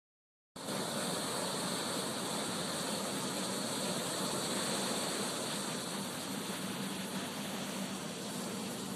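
Ocean surf breaking on a beach: a steady rushing noise that starts abruptly about half a second in.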